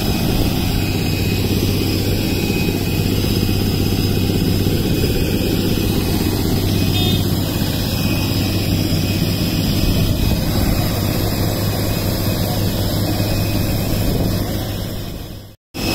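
Steady loud hum of jet aircraft on the airport apron, with a constant low drone under high, even turbine whines. It fades away and cuts off just before the end.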